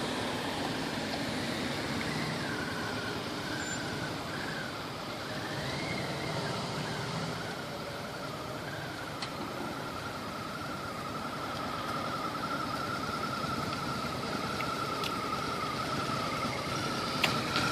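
Harley-Davidson V-Rod motorcycle running at low speed as it rides slowly toward the camera, a low engine rumble growing slightly louder near the end. A high whine wavers in pitch at first, then holds steady, and there is a sharp click near the end.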